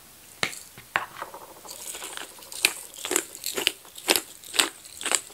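A string of sharp clicks and taps, a few scattered at first, then about two a second from about halfway through.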